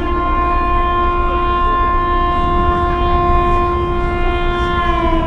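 Long, steady blast of a ship's horn, several pitches sounding together, as the Santa Maria sightseeing boat departs. The pitch sags briefly as the blast dies away near the end, over a low rumble.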